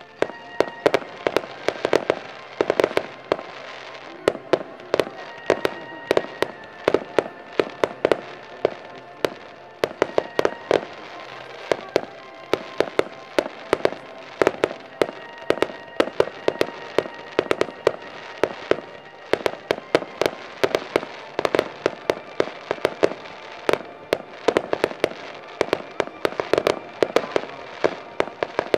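Fireworks firing in rapid succession: sharp bangs and cracks, several a second, with music playing underneath.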